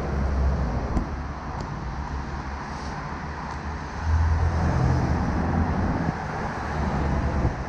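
Street traffic: cars driving past on a city road, with one car passing close and louder about four seconds in.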